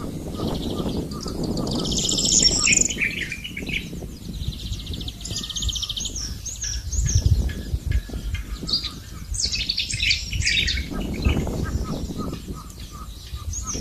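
Small birds chirping and trilling in repeated bursts, with quick high chirps near the end. Beneath them, the splashing and scraping of a hoe working wet mud in a flooded furrow, with a few dull thuds.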